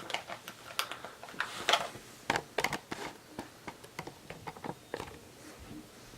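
Hands opening a small retail product box: an irregular string of small clicks, taps and rustles of cardboard and plastic packaging being handled.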